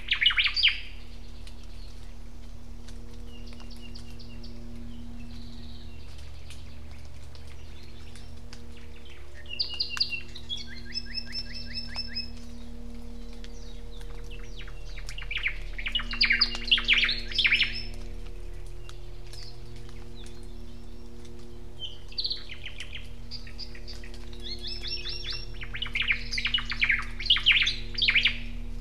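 Native Hawaiian forest birds singing in a sensor field recording. An ʻōmaʻo (Hawaiian thrush) phrase comes right at the start, then further clusters of song at about 10, 16, 22 and 27 seconds, over a low steady hum.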